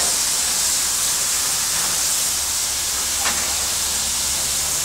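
Steady high-pitched hiss of escaping steam from the standing steam locomotive 3801, a NSWGR class 38 Pacific in steam, with one brief click about three seconds in.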